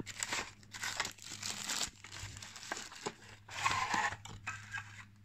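Plastic wrap and paper packaging crinkling and rustling in several irregular bursts as a fitness band is unpacked from its box.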